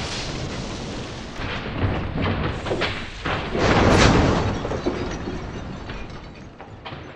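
Train-crash sound effects. A rolling train noise runs first, then clanking impacts begin about a second and a half in. They build to a loud booming crash about four seconds in as goods trucks smash and tip over, then clatter off into quieter knocks.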